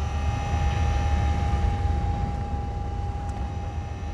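A steady low rumble with a held, even hum above it: the background machinery-like drone of a film soundtrack.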